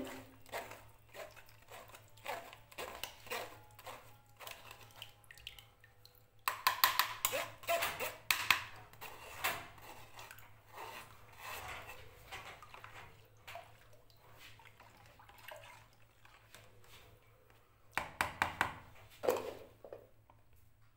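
A metal spoon scraping and pressing lemon pulp through a plastic strainer, with juice dripping and trickling into the tub below. The scraping gets louder from about six to ten seconds in, and a few sharp knocks come near the end.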